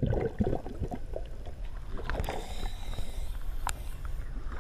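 Seawater sloshing and splashing against a waterproof action-camera housing as it bobs at the surface. The splashing is busiest right at the start, as the camera comes up from a brief dip under the water, then settles into a steady wash of small waves.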